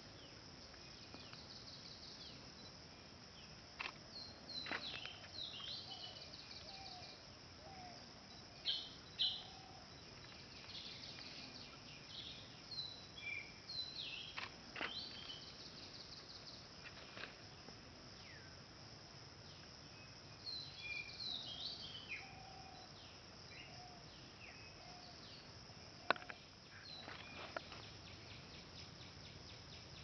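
Woodland ambience: a steady high insect buzz, with wild birds calling and chirping in scattered bursts, the two loudest calls about nine seconds in. A single sharp click near the end.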